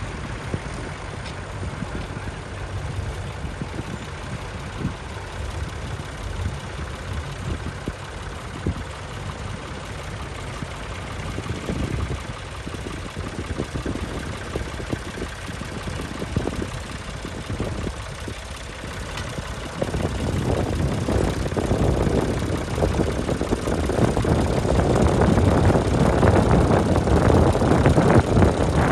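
Vintage tractor engine running with a steady beat, growing louder from about twenty seconds in.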